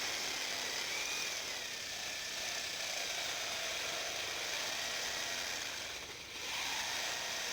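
Electric drill running with its bit grinding into the thick glass bottom of a bottle, a steady high grinding hiss with a wavering whine, while water runs into the hole to cool the bit. It eases off briefly about six seconds in, then resumes.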